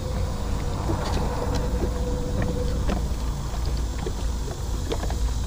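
Steady low rumble of wind and boat noise, with a faint steady hum for about the first three seconds and a few light clicks.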